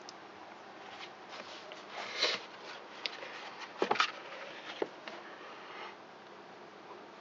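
Paperback book being handled: paper rustling and a string of taps and knocks as it is closed and turned over onto a table, loudest in two spells about two and four seconds in.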